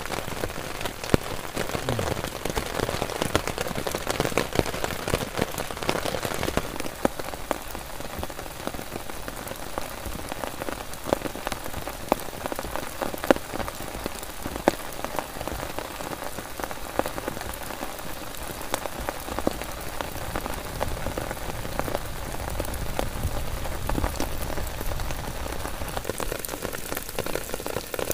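Heavy rain falling steadily on a tent and on wet grass and puddles, with many sharp drop hits throughout. The deeper part of the sound falls away about six seconds in.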